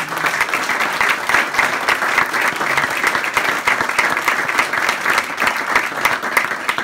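Small seated audience applauding, a dense, steady clapping of many hands.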